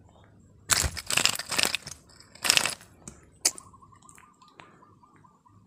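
Handling noise from a hand rubbing against the phone's microphone: two loud scuffling, crackling bursts, then a single sharp click. A faint steady high tone follows.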